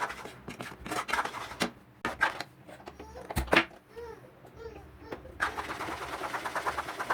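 A spoon stirring thick Mysore pak batter of gram flour and sugar syrup in a metal pan, knocking and scraping against it. About two-thirds of the way in the stirring turns into a fast, even run of scrapes, several a second, as the lumps are worked out. A faint child's voice can be heard near the middle.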